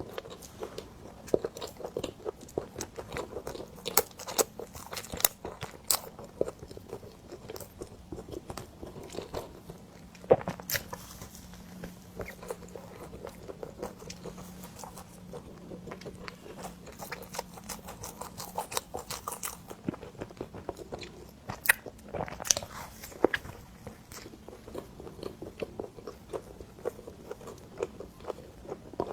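Close-miked mouth sounds of chewing and biting cream bread: many small wet clicks and crunches, with a few sharper bites standing out.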